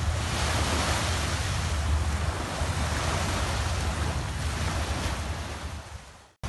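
Sea surf washing onto a beach, with wind buffeting the microphone as a low rumble; the sound fades away and cuts off near the end.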